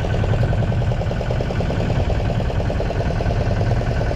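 Fishing boat's engine running steadily with an even, rapid pulse and a faint high whine.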